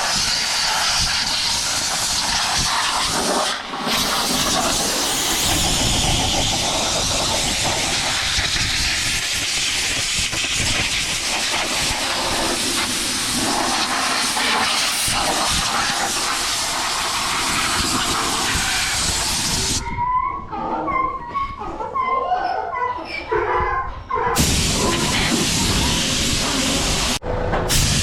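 Compressed-air hose blowing off farm machinery: a loud, steady hiss. It breaks off briefly about four seconds in, stops for about four seconds around twenty seconds in, and cuts out for a moment near the end.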